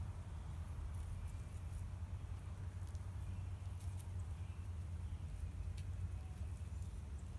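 Sandhill cranes foraging in grass, with scattered soft ticks as their bills probe the turf, over a steady low rumble.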